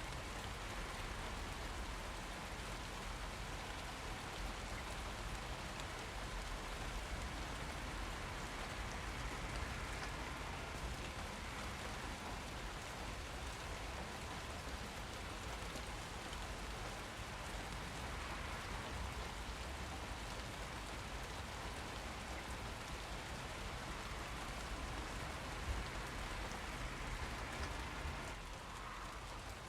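Steady rain falling, an even hiss of drops, with one louder single tap about three-quarters of the way through.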